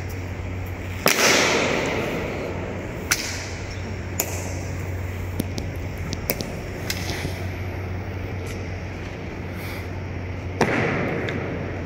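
Honour guard drill: boot heels and rifles clacking on a hard floor, with two loud strikes, about a second in and near the end, each ringing on in the echo of a large hall, and lighter clicks of marching steps between them.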